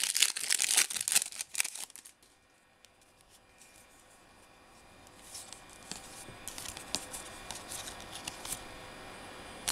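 Foil wrapper of a baseball card pack being torn open by hand, with loud crackling for about the first two seconds. After a brief near-quiet pause, faint crinkles follow as the wrapper and cards are handled.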